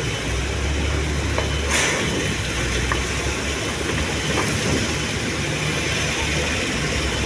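Komatsu excavator's diesel engine running steadily under hydraulic work, with a short hiss of air or hydraulics a little under two seconds in and a few faint metallic clicks.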